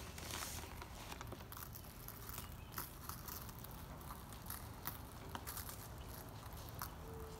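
Faint patter of brown sugar sprinkled by hand onto a rack of pork ribs and the aluminium foil under it, heard as scattered small ticks and crackles.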